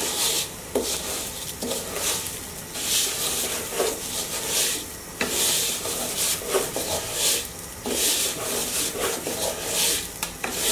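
Spatula stirring rice grains as they fry in oil in a pot, in repeated scraping strokes, about three every two seconds.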